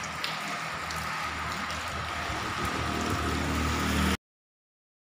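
Heavy rain falling on a wet street, a steady hiss, with a low rumble growing louder near the end. The sound cuts off suddenly about four seconds in.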